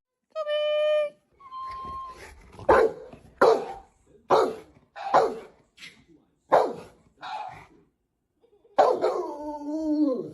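A dog barking about seven times in a steady series, then a long drawn-out howl whose pitch falls near the end. Two short, steady high-pitched tones come just before the barking.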